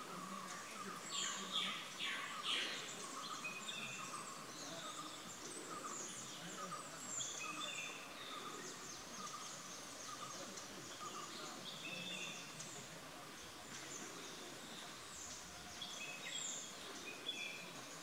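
Wild birds calling in forest: scattered short chirps and whistled notes at varied pitches, with a brief flurry of louder chirps between one and three seconds in, over a faint steady background hiss.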